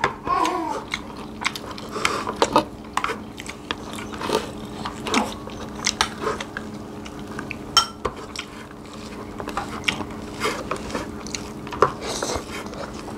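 Close-up eating sounds: chewing and biting of rice and fried fish eaten by hand, as irregular wet smacks and small clicks, with light taps of fingers and utensils on plates.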